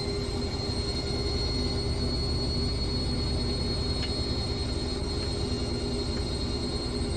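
Hotpoint WML540 Aquarius washing machine spinning its drum at steady high speed with the door open: a steady high whine over a low rumble.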